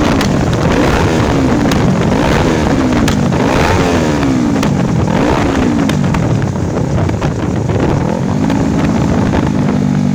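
Yamaha YZF-R25's parallel-twin engine through an Akrapovič exhaust, revved in repeated throttle blips, its pitch rising and falling about once a second, then settling to a steadier note near the end.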